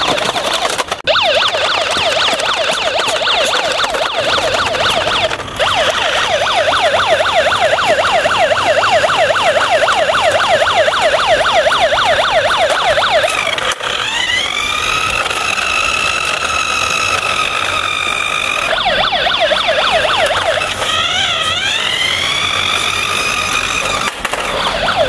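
Electronic police siren sounding continuously, first a fast yelp of rapid rising and falling sweeps, then about halfway through changing to slower long wails with a brief fast warble near the end.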